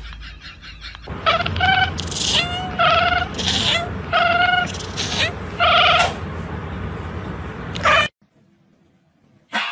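A cat meowing loudly over and over, a string of drawn-out calls roughly every second, breaking off abruptly near the end.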